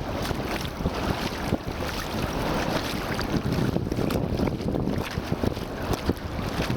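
Wind buffeting the microphone, with sea waves washing on the shore behind it.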